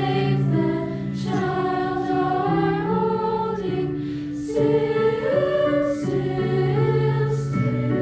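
School choir singing in harmony, several voices holding notes together and moving to a new chord every second or so.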